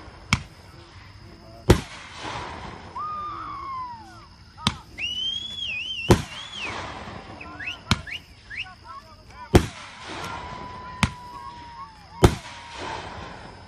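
Fireworks show: eight sharp bangs of aerial shells bursting, spaced one to two seconds apart, with high wavering tones between some of the bangs.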